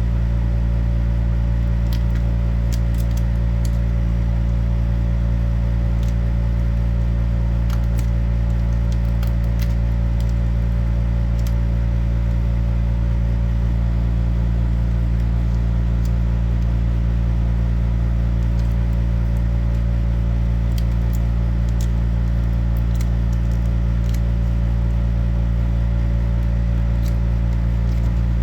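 A steady, loud low hum of running machinery or electrical hum, unchanging throughout, with a few faint light clicks scattered over it.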